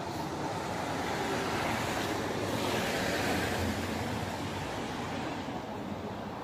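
Steady hiss of street traffic noise, swelling for a second or two midway as a vehicle passes.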